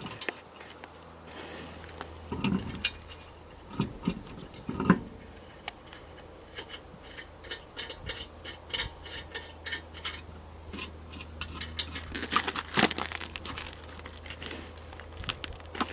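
Irregular metallic clicks, knocks and scrapes of hand tools on lug nuts and wheel hardware during a tire change onto a donut spare, with a louder flurry of knocks near the end.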